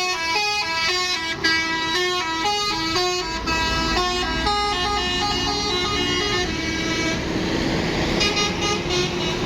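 Indonesian tour bus telolet horn playing a tune: a quick run of stepped notes, then a held chord, then another run of notes near the end. A low rumble sets in underneath from about three seconds in.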